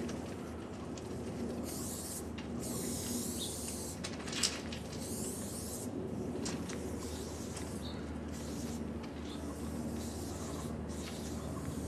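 Aerosol spray paint can hissing in a series of short bursts as lines are painted, over a steady low hum. A sharp click about four and a half seconds in.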